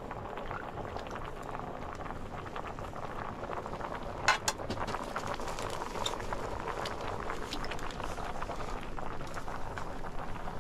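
Large pot boiling hard over an open wood fire: steady bubbling with small crackles from the fire. A single sharp metallic clink about four seconds in.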